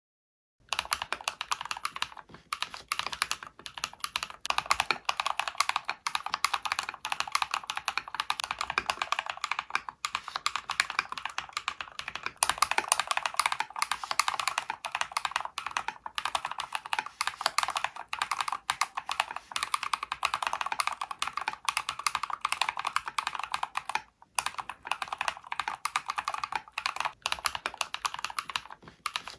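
Fast, continuous typing on a mechanical keyboard with Holy Panda tactile switches: dense clacking keystrokes as different keycap profiles are played one after another. The typing breaks off briefly about 24 seconds in.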